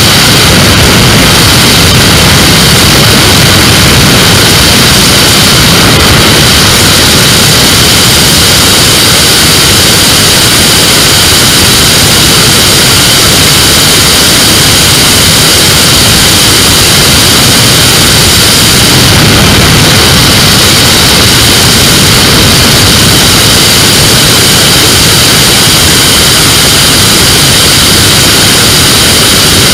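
GTR flexwing microlight in flight: its engine and propeller running steadily under heavy wind rush over the camera, making a loud, unbroken roar.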